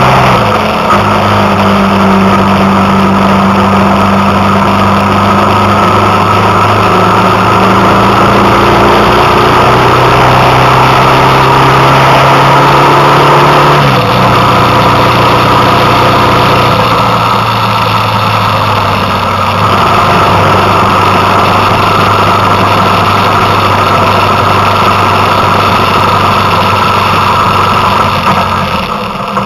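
Vehicle engine running steadily on the move, under heavy wind and road noise. Its note drops sharply about a second in and again about halfway through.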